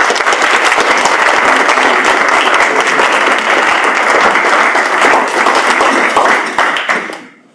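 Audience applauding: dense, steady clapping from many hands that tails off near the end.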